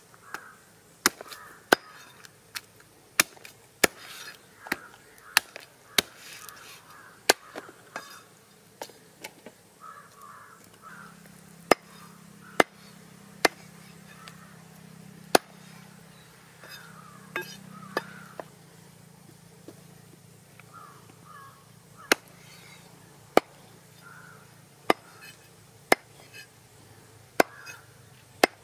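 Large knife chopping goat head meat against a wooden log chopping block: sharp single chops at an uneven pace, about one a second, with a few longer gaps.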